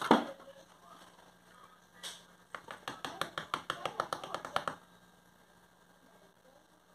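Wire whisk clicking rapidly against the sides of a plastic mixing bowl as flour is whisked into a wet dough, about nine strokes a second, stopping about two-thirds of the way through. A single knock at the very start.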